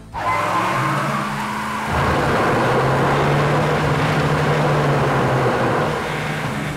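Cartoon sound effects of several vehicles' engines running hard and wheels spinning in dirt as they strain to pull a stuck truck free; the steady engine drone gets louder about two seconds in.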